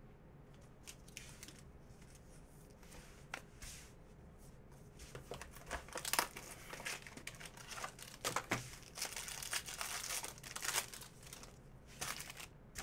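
Trading cards and their packaging being handled: a card pack crinkling, with cards sliding and clicking against each other. The handling is sparse at first and busier through the middle.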